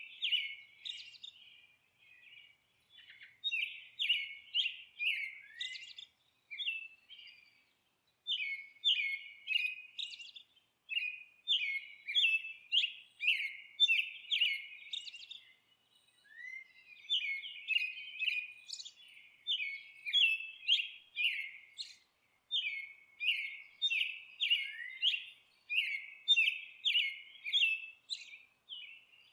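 Bird chirping: quick runs of short, high notes, several a second, in phrases of a few seconds with brief pauses between them.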